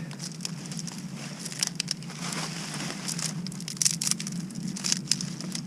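Irregular crackling and crinkling of dry wood and forest litter, a scatter of sharp snaps and rustles.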